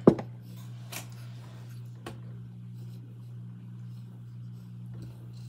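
Close-up eating sounds from a mukbang: a sharp click just as it starts, then two fainter ticks about a second apart and soft chewing, over a steady low hum.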